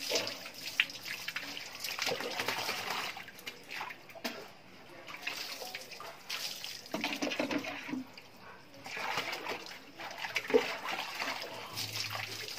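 Water poured from a plastic mug over a wet dog's back and running off onto a tiled floor, in several pours of a second or two each with short pauses between, as the mug is refilled.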